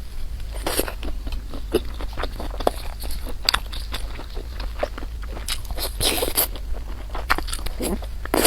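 Close-miked eating: irregular chewing and wet mouth clicks, with a longer noisy stretch about six seconds in.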